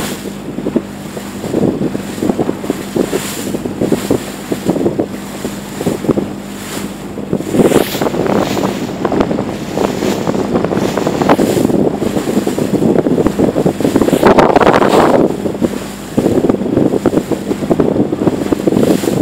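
Wind buffeting the microphone in gusts over the steady hum of a Joda 24 motorboat's engine and the rush of water along the hull as the boat runs through choppy water.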